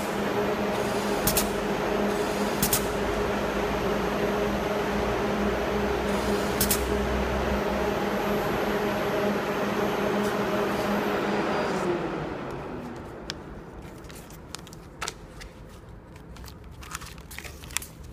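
Bag labeling machine running with a steady mechanical hum and a few sharp clicks from its mechanism, then winding down and stopping about twelve seconds in, after which only light clicks and handling remain.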